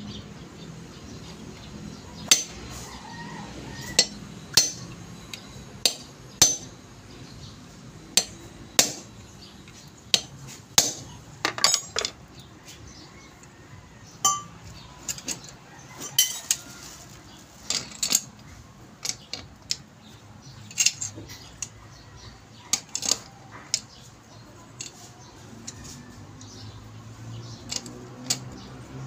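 Claw hammer tapping a steel punch against a power steering box, with metal clinks of hand tools on the box, in sharp single strikes at irregular intervals.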